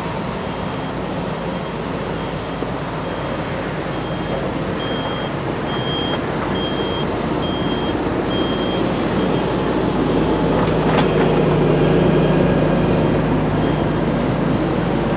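Diesel engines of an excavator and dump trucks running, with a reversing alarm beeping in a steady repeating pattern. The engine noise grows louder in the second half, and a single sharp clank comes about eleven seconds in.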